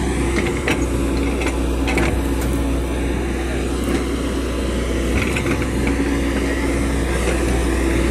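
Diesel engine of a JCB tracked excavator running steadily under working load while the boom and bucket move, heard from inside the operator's cab. A few short knocks rise above the steady low hum.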